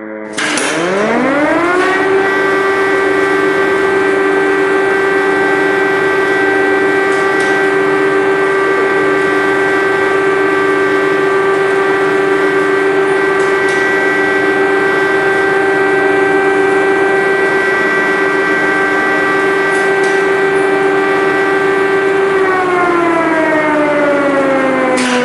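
Air-raid siren sounding an alert: it cuts in, winds up over about two seconds to a loud steady wail, holds one pitch for about twenty seconds, then winds down near the end.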